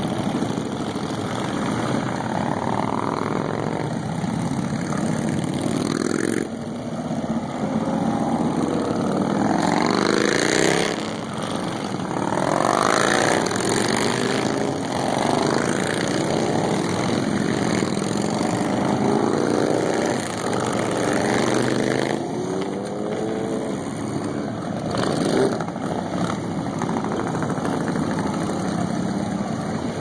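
A procession of motorcycles, mostly Harley-Davidson V-twin touring bikes, riding past one after another. The engines overlap in a continuous run of sound, each one rising and then falling in pitch as it goes by.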